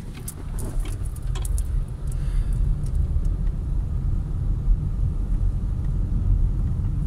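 Low, steady rumble of engine and road noise inside a moving car's cabin, getting a little louder about two seconds in. A few light clicks come in the first two seconds.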